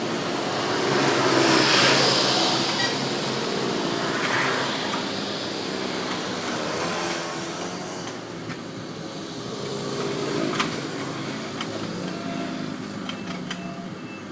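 Heavy diesel machinery engine running under load, surging louder about two seconds in and again around ten seconds. A faint, evenly repeating beep comes in near the end.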